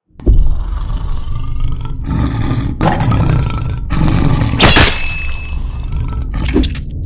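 Cartoon werewolf's roaring and growling sound effect. It starts abruptly out of silence and runs on loud and rough, with sharper peaks about three, five and six and a half seconds in.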